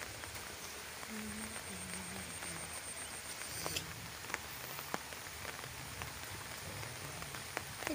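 Rain falling steadily onto open pond water: an even hiss with a few scattered drop ticks.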